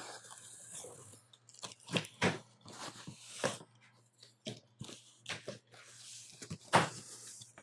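Cardboard box being opened by hand: irregular crunches, crinkles and scrapes of the cardboard flaps being pulled and bent back, with a sharper crunch near the end.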